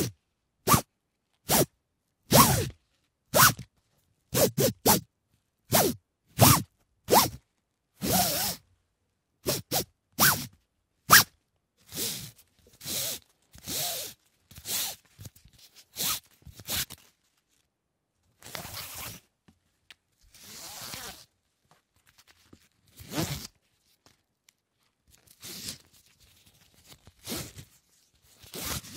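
Cargo tension belt being worked: a series of short, sharp ratcheting strokes in quick succession, then slower, longer and softer strokes of the strap with short pauses between them.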